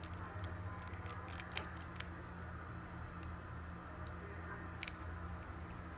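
Scattered light clicks and taps of small hand tools working on an iPhone 6s's internal parts, bunched about a second in, with a few single clicks later, over a steady low hum.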